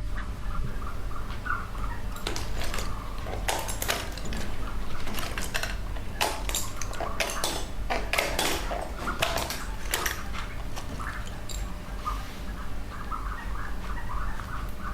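Ostrich eggshell being cracked and picked away by hand: sharp irregular clicks and crackles, thickest in the middle. Short faint peeps from the chick come over a steady low hum.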